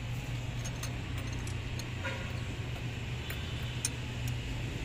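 Scattered light metallic clicks and clinks of a hand tool and small metal parts being handled in an engine bay, over a steady low hum.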